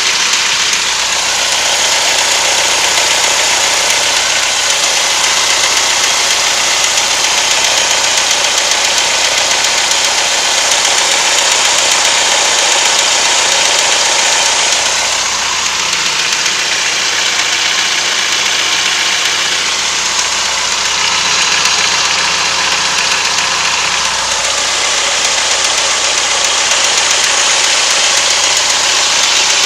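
Car engine idling with a steady knock, the fault the owner is showing, while the engine is only partly warmed up.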